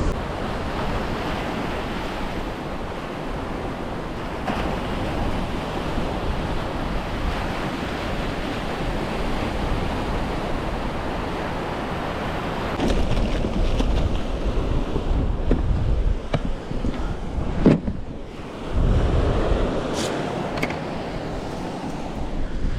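Ocean surf washing steadily onto the beach, with wind buffeting the microphone in gusts. A couple of sharp knocks come in the last few seconds.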